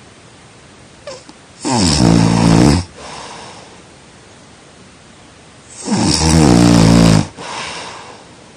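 A person snoring: two loud snores about four seconds apart, each falling in pitch and followed by a softer breath.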